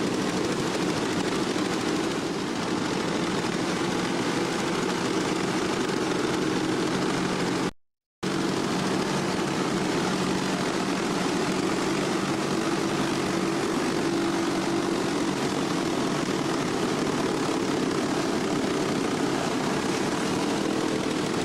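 Hama's giant wooden noria waterwheels turning: a steady low drone from the wooden wheel and its axle bearings over rushing water. The sound cuts out for about half a second about a third of the way in.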